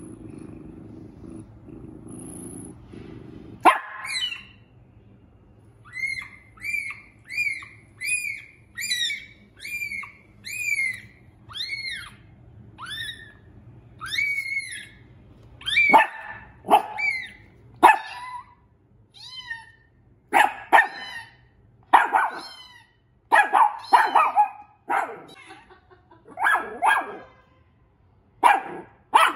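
A dog barking repeatedly and loudly, the barks starting about halfway through. Before them comes a run of high, evenly spaced cries, about two a second, each rising and falling in pitch.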